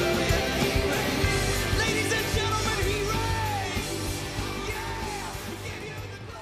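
Rock music with a drum beat and sung voices, fading out gradually.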